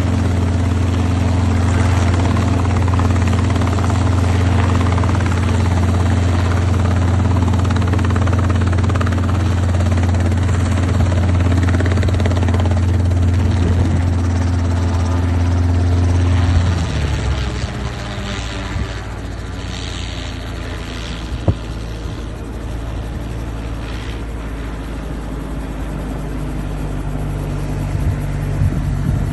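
Robinson R22 Beta II helicopter running on the ground: its two-bladed main rotor and piston engine make a loud, steady low beat. About two-thirds of the way in, the beat falls in pitch and grows quieter as the rotor slows. A single sharp click sounds a few seconds later.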